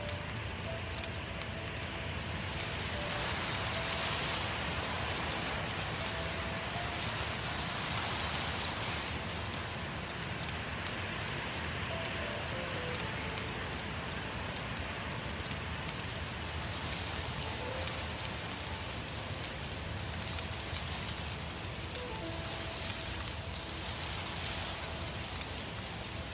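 Forest-fire sound effect: a steady rush of burning with fine crackling, swelling now and then, under faint, slow music notes.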